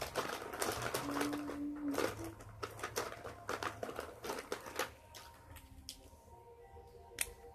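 Close handling noise: a dense run of small clicks, taps and rustles for about five seconds, thinning to a few scattered clicks near the end.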